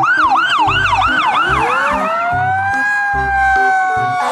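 Fire apparatus electronic siren sounding a fast yelp, rising and falling about three times a second. Partway through it gives way to a slower wail that climbs and then holds a steady pitch.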